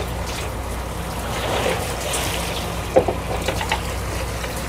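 A fishing boat's engine hums low and steady under water splashing and trickling along the hull, with a few small knocks about three seconds in.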